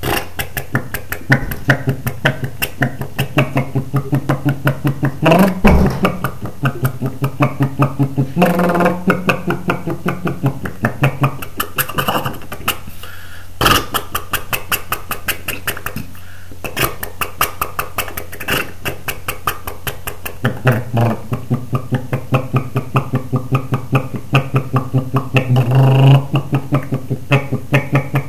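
A person imitating a motorcycle engine with their mouth, a rapid rhythmic putt-putt of pulses over a steady low hum.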